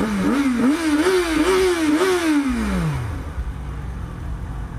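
Yamaha XJ6's 600 cc inline-four motorcycle engine revved in a run of quick throttle blips, each one a little higher, then the revs fall smoothly back to idle about three seconds in.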